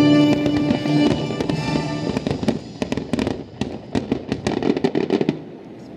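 Fireworks bursting in rapid succession: many sharp bangs and cracks. Music with a held chord plays under them and stops about a second in. The bangs then thin out and die away near the end.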